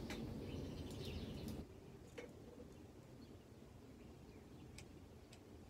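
Faint outdoor ambience with birds chirping. A low rustling noise cuts off suddenly about a second and a half in, leaving quieter background with a few light clicks.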